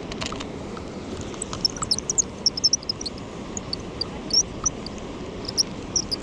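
Many short, high chirps from small animals, scattered irregularly and starting about a second and a half in, over a steady rush of river water.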